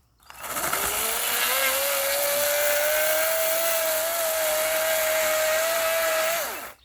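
Battery-powered chainsaw running: the electric motor's whine rises as it spins up, holds steady for about four seconds over the loud rush of the chain, then drops away and stops as the trigger is released.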